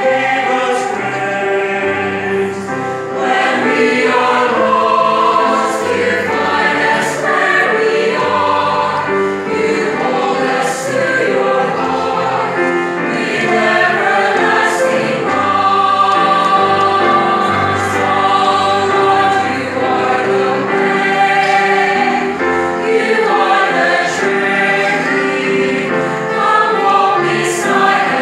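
Mixed choir of women's and men's voices singing together, several sustained vocal lines at once with the men's low voices beneath.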